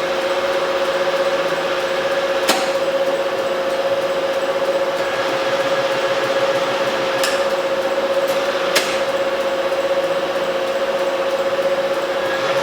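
Jet HVM-1PFB vertical/horizontal milling machine running, with a steady whine, and three sharp clicks: about two and a half seconds in, past the middle, and shortly after that.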